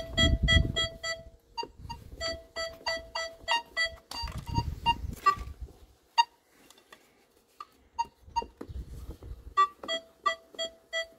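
Nokta Makro Legend metal detector giving rapid runs of short beeps at two pitches as a two-heller coin on a stick passes under its coil in an air test through the block. There is a brief lull after about six seconds, and a low rumble of the stick being handled near the start and again around four seconds in.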